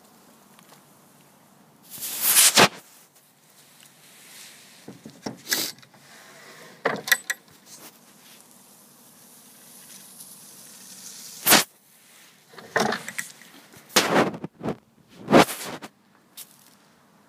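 A series of short wooden scrapes and knocks, several seconds apart: the drawers of a mahogany chest being slid open and pushed shut.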